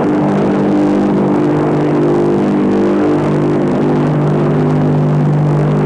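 Convair XFY-1's turboprop engine and contra-rotating propellers in level flight: a loud, steady droning hum with several held tones over a rushing noise.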